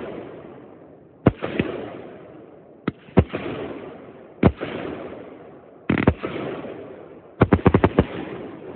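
Aerial fireworks bursting: sharp bangs about every second, each trailing off in a rolling echo, then a quick run of about half a dozen bangs near the end.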